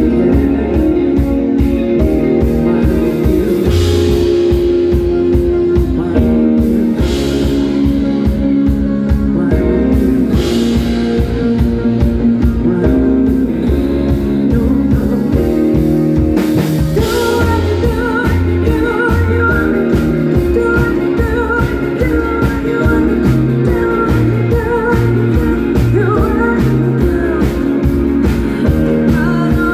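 Live band playing a pop-rock song, a woman singing lead over drums and keyboards with a steady beat.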